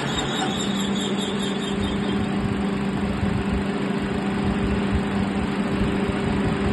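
Adjustable-PCD multi-spindle drilling machine running: a steady motor hum over broad whirring noise, the hum stepping up in pitch about half a second in.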